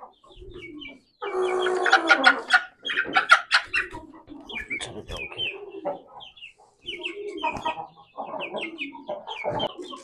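Chickens clucking and calling, with a loud run of calls a little over a second in, then scattered clucks.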